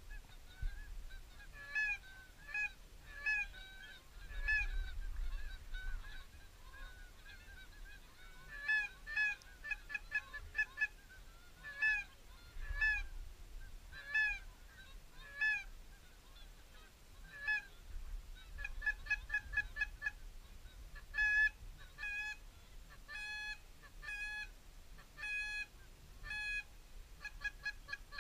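Geese honking as a flock passes over: a long series of short honks, some coming in quick runs, with a faint low rumble of wind underneath.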